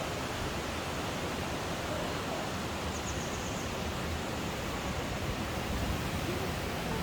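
Steady rushing of a mountain stream, an even hiss of running water that never lets up. A brief faint high trill comes about three seconds in.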